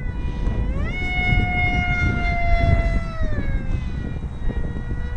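Electric whine of the FF-22 foam RC jet's brushless motor and propeller in flight. It holds steady, rises in pitch about a second in as the throttle opens, holds there, then drops back a little after three seconds. Wind rumbles on the microphone underneath.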